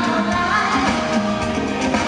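Live pop music from a stage band with drum kit, a woman singing into a microphone over it, heard from among the audience.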